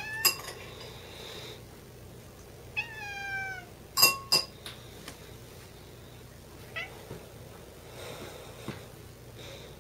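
A cat meows once, a single call falling in pitch about three seconds in. Sharp knocks come at the start and twice about four seconds in; those two are the loudest sounds.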